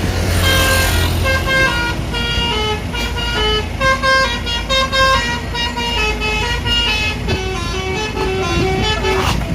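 Bus 'telolet basuri' multi-tone horn playing a tune of short stepped notes, over the low rumble of the bus engine.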